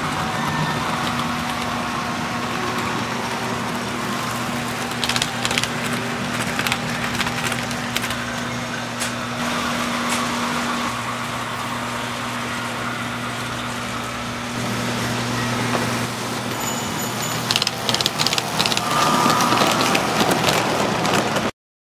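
Toy trains running on a model railroad layout: a steady electric hum with a mechanical running noise, and clusters of rattling clicks from wheels over the track, busiest near the end. The sound cuts off suddenly just before the end.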